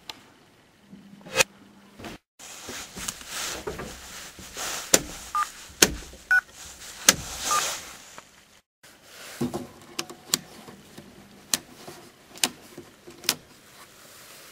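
A string of sharp clicks and knocks from switches and handling, with rustling between them and a few short faint beeps a little past the middle, broken twice by a sudden drop to silence.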